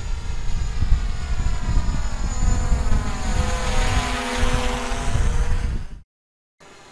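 DJI Mavic Pro quadcopter flying, its propellers and motors making a multi-tone whine over a heavy low rumble. The tones bend in pitch around the middle, and the sound cuts off about six seconds in.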